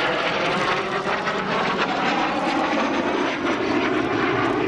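Kawasaki T-4 jet trainer flying past, its twin turbofan engines a steady loud rush.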